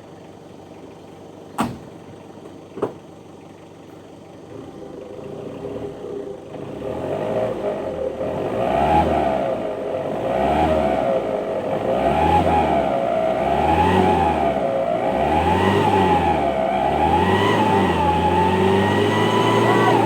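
A vehicle engine revving in repeated surges, its pitch rising and falling about every second and a half to two seconds and growing louder from about six seconds in. Two sharp knocks come in the first few seconds.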